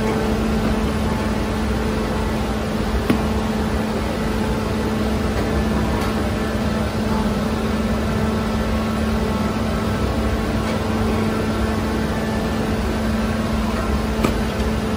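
Steady electric motor hum of bakery machinery with a constant low tone, with a light knock about three seconds in and another near the end.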